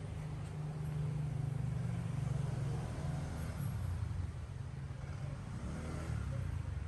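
Steady low rumble of a road vehicle on the move.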